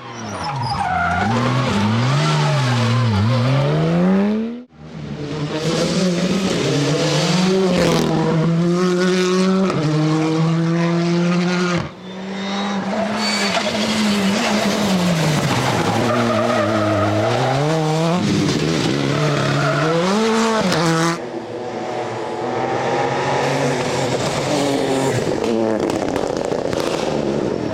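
Rally cars driven hard on a special stage, engines revving up and falling back through the gears again and again. The sound comes in several separate passes, breaking off abruptly between them.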